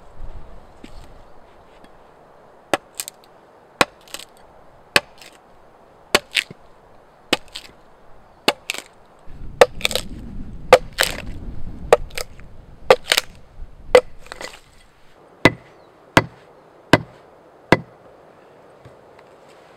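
A homemade forged axe hewing a flat face along a log: about twenty sharp, irregular chops roughly a second apart, closer together in the middle, with chips splitting off. A low rumble sits under the blows in the middle.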